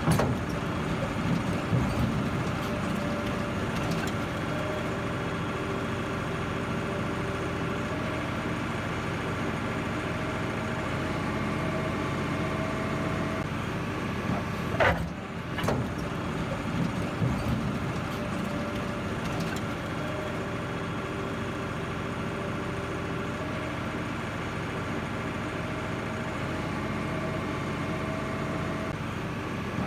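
Diesel engines of heavy earthmoving machinery running steadily, with a brief break about halfway through.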